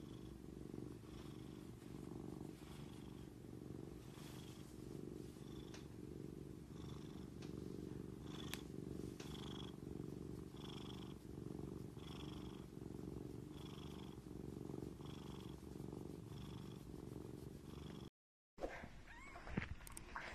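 Korat cat purring steadily, swelling about once a second. Near the end it cuts off, and a few short, sharper sounds follow.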